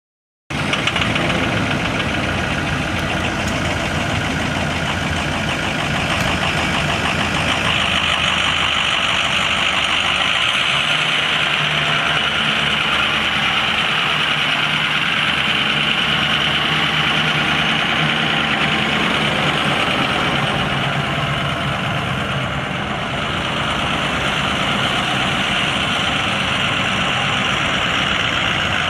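A 2005 Ford F550's 6.0L V8 turbo diesel engine running steadily at idle.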